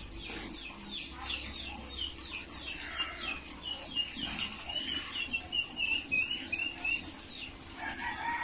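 Birds calling: a long series of short, high, falling chirps, two or three a second and quickening toward the end, then a lower call near the end.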